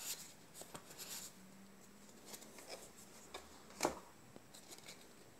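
Faint rustling and light clicks of Magic: The Gathering trading cards being flipped through by hand, with one sharper tap just before four seconds in.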